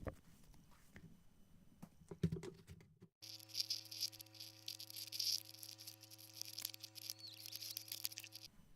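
Slime being worked by hand: soft sticky clicks and pops, then a cut after about three seconds to a dense, fizzy crackling of slime over a steady electrical hum, which stops abruptly near the end.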